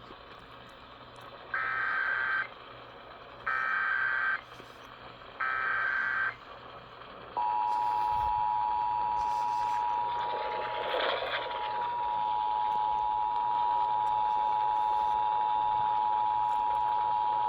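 Emergency Alert System activation. Three short bursts of warbling SAME header data tones come first, then the steady two-tone EAS attention signal starts about seven seconds in and holds for about ten seconds, with a brief burst of noise over it around the middle. Together they announce a severe thunderstorm warning.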